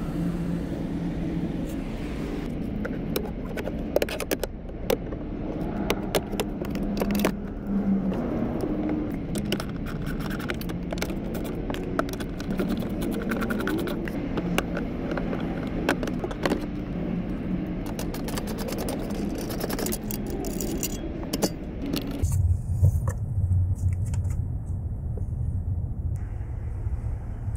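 Plastic lower dashboard trim and clips of a 2020 Lincoln Navigator clicking and scraping as the panels are worked loose by hand: many sharp clicks over a steady low hum. About 22 seconds in the clicking stops and a low rumble remains.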